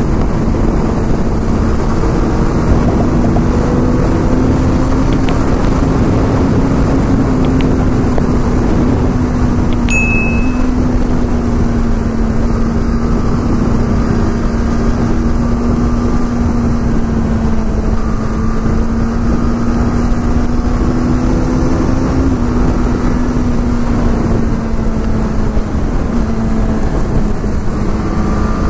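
Honda CBR sport bike's engine running at steady cruising revs, its pitch drifting gently up and down, over heavy wind rush on the microphone from highway speed. A brief high beep sounds about ten seconds in.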